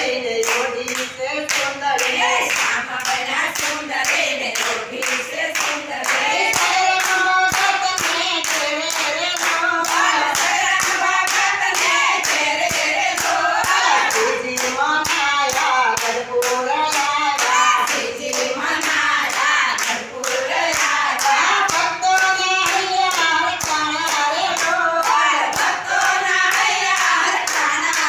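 A group of women singing a Gujarati Swaminarayan kirtan (devotional bhajan) in unison, one voice led through a microphone, while they all clap their hands in a steady rhythm.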